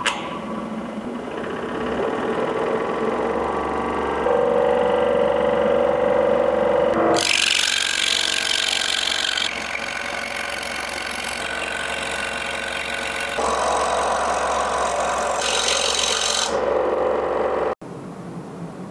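A 21-inch variable-speed scroll saw with a 120 W motor cutting a thin wooden board along a curved line, its blade stroking up and down steadily through the wood. The sound shifts abruptly in pitch and loudness several times and cuts off suddenly near the end.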